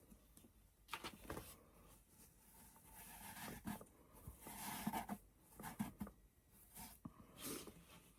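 Faint rustling and brushing as Mod Podge is worked onto the material with a brush and the material smoothed down, with a few light knocks.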